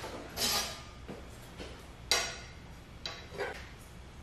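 Several light metal clinks and taps as a square is set against the steel frame rails of a CNC plasma table to check the frame for square. The sharpest comes about two seconds in.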